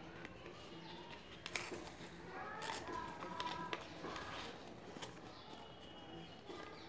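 Sheet of paper being folded into a boat by hand, with a few soft clicks and crinkles from the paper, while birds call in the background.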